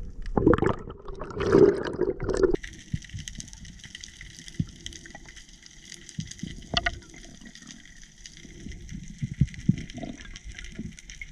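Underwater sound picked up through a GoPro's waterproof housing. For the first couple of seconds water gurgles and swishes around the camera. Then the sound changes abruptly to a steady faint hiss with scattered clicks and soft low thumps.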